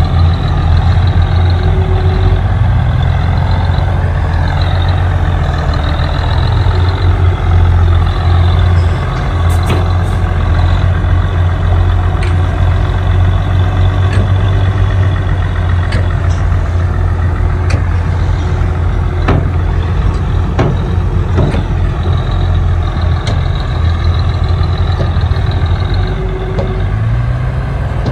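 Heavy diesel engine of earthmoving machinery running steadily, with a few sharp knocks scattered through.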